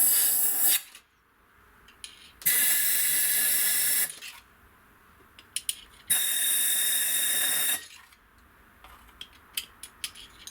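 Compressed-air blow gun hissing in blasts of about a second and a half, with quiet gaps and a few light clicks between them.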